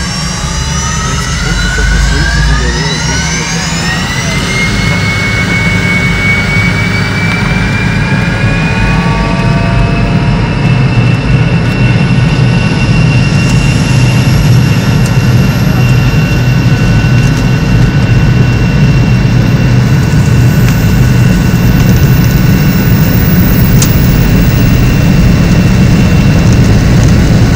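The Fokker 100's rear-mounted Rolls-Royce Tay turbofans, heard inside the cabin, spooling up for takeoff. Several whines rise steeply in pitch over the first few seconds, then settle and keep climbing slowly, above a deep rumble, as the engines grow steadily louder.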